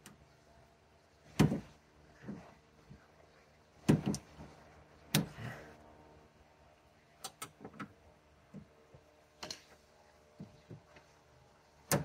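A handful of sharp, irregularly spaced knocks and clicks, with a quick run of small clicks midway: a pick tool and gloved hands working against a car door's inner sheet metal and the plastic handle connector and clip, prying them loose.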